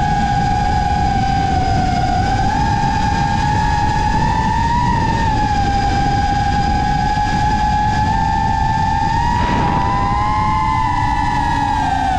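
FPV racing quad's motors whining together at a steady cruise, their pitch drifting up and down with throttle and the motors drifting slightly apart in pitch, over a rumble of wind and prop wash.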